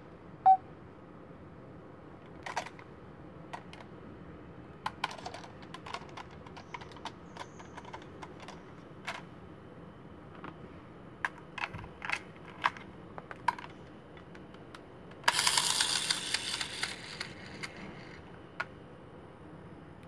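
Scattered plastic clicks and light knocks from a homemade Kamen Rider-style transformation toy being handled, its cover opened and its keypad buttons pressed. About fifteen seconds in, a loud hissing rush lasts roughly two seconds.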